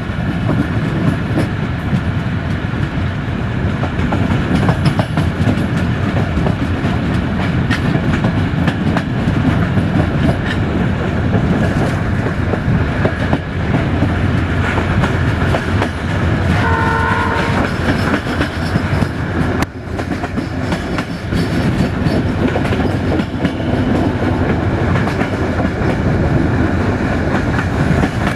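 Passenger train in motion: steady rolling noise and wheel clatter on the rails, with one short horn blast from the diesel locomotive a little over halfway through.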